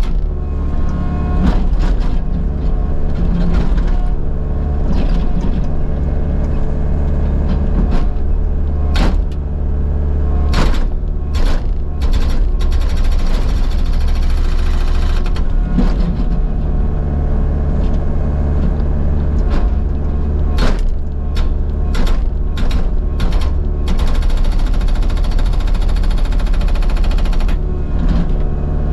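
Kubota U55-4 mini excavator's diesel engine running steadily, with intermittent sharp metallic clanks and knocks from the machine working.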